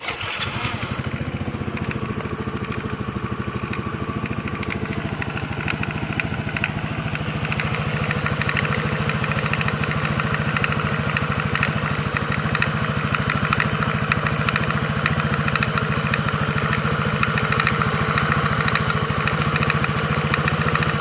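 Yamaha Mio Soul i 115 scooter's single-cylinder four-stroke engine running at idle, with a fast clattering rattle over it that gets a little louder partway through. The noise comes from inside the CVT side cover, where a slack drive belt is later found.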